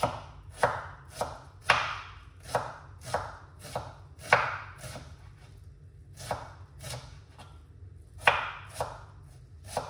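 Kitchen knife chopping an onion on a cutting board: separate sharp strokes against the board at roughly two a second, in an uneven rhythm.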